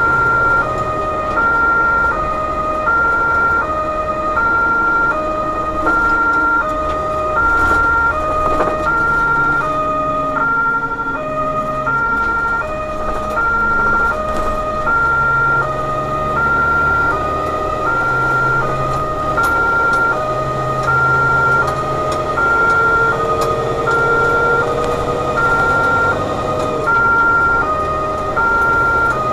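German two-tone emergency siren sounding continuously, its high and low notes alternating about every two-thirds of a second, heard from inside the cab of an overhead-line maintenance truck on an emergency run. Engine and road noise run underneath.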